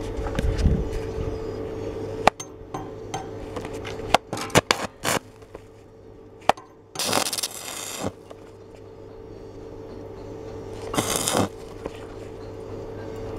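Stick-welding electrode tapped and scratched on a steel block to strike the arc: a few sharp metallic clicks, then two short hissing, crackling bursts of about half a second each as the arc catches and dies. A steady low hum runs underneath.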